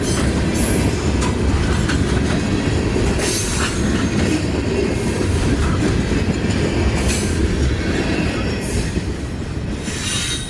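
Freight train cars rolling past close by: a steady heavy rumble, with wheel flanges squealing in several short bursts along the way.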